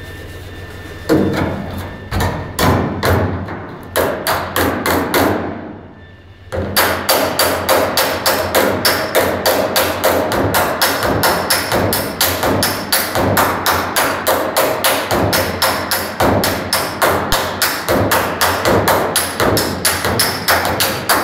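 Small hammer striking the rusted sheet-metal roof edge of a 1960 Chevrolet Impala, in rhythmic metalwork blows. A few spaced strikes come first, then after a short lull a fast, even run of several blows a second.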